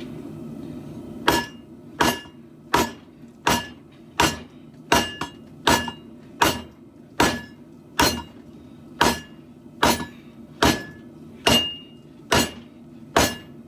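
Hand hammer striking a steel katana blade on an anvil: about seventeen even blows, a little faster than one a second, starting about a second in. Each blow rings briefly, over a steady low hum.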